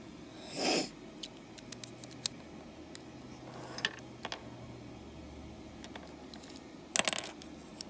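Small plastic clicks and taps as a LEGO train motor and bricks are handled and fitted together, with a quick cluster of sharper clicks about seven seconds in. A brief rush of noise comes under a second in.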